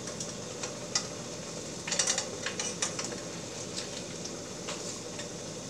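Wine-and-butter pan sauce simmering with a steady sizzle in a stainless steel skillet, with metal tongs clicking against the pan several times, most in a short cluster about two seconds in.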